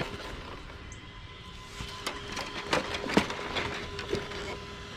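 Arrma Kraton 6S RC car's brushless motor giving a faint steady whine while it strains with a wheel stuck on a rock obstacle, with scattered clicks and knocks from about two seconds in.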